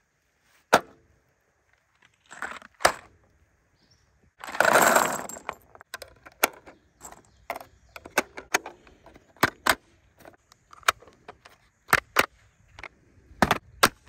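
.300 Blackout cartridges being pressed one at a time into a translucent polymer rifle magazine, each round going in with a sharp click, with loose brass rounds clinking. There is a longer rustle about five seconds in, and two louder clicks near the end.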